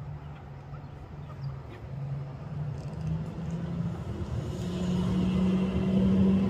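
A steady mechanical hum, like a motor or engine, that rises in pitch and grows louder over the second half.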